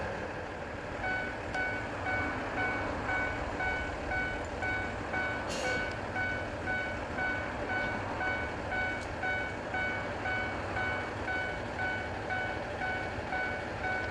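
Level-crossing warning bell dinging about twice a second, over the steady running of a Tenryu Hamanako Railway TH2100 diesel railcar's engine standing at the platform.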